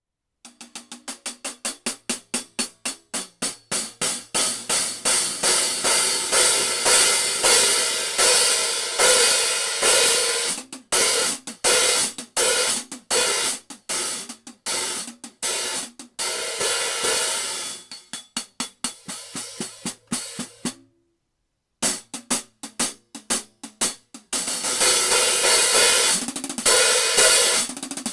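Synergy Zircon cymbals played with sticks on a drum kit in rapid, evenly repeated strokes, swelling in loudness over the first few seconds. The playing stops briefly about 21 seconds in, then returns as a denser, sustained cymbal wash.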